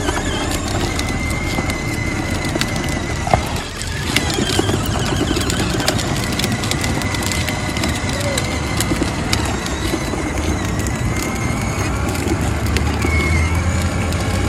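Battery-powered ride-on toy car driving, its plastic wheels rolling over rough pavement with a steady noisy rumble and a faint high whine throughout.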